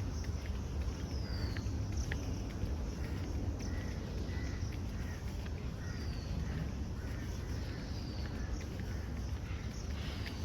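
Birds calling outdoors: a few short, high, downward-sliding whistles and brief chirps, over a steady low rumble.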